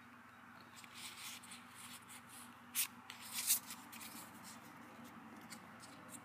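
Pokémon trading cards being handled and shuffled in the hand, soft rustling with a few brief sharper card sounds about three seconds in.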